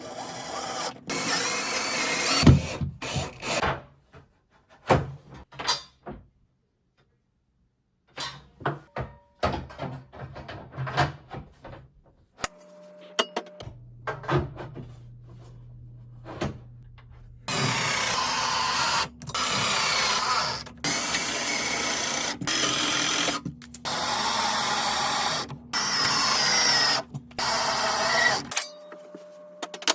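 Power drill running in a series of bursts of a second or two each, one after another, through the second half. Before that come scattered knocks and clicks of handling parts.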